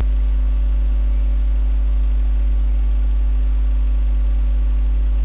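Steady electrical hum: a loud low drone with several even overtones above it, stepping up in level right at the start.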